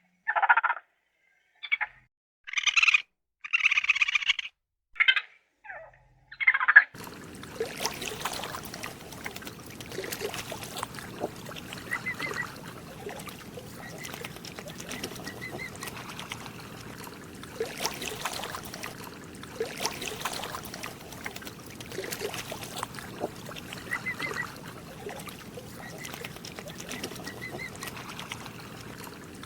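A string of short animal calls separated by silences over the first several seconds. After that comes a steady noisy outdoor background with faint, repeated bird-like chirps.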